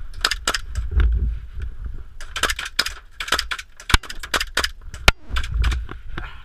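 Airsoft skirmish at close quarters: a string of irregular sharp clicks and knocks from shots and BB hits, with low thumps of movement and handling. Two especially sharp cracks come about four and five seconds in.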